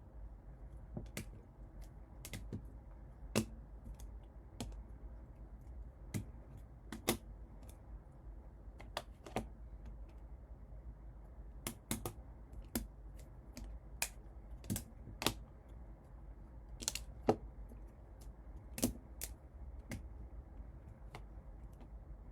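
Irregular sharp clicks and taps, roughly one or two a second, from trading cards and card holders being handled and set down on a table, over a low steady hum.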